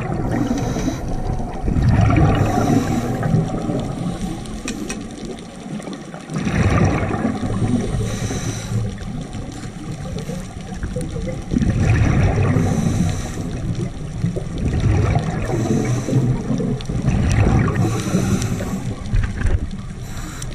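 Scuba diver breathing through a regulator underwater. Each breath is a short hiss on the inhale, then a longer gurgling rush of exhaled bubbles, and the cycle repeats every few seconds.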